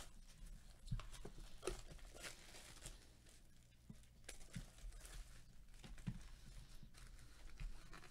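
Faint crinkling and rustling of a clear plastic bag handled with rubber gloves, with scattered small clicks and crackles.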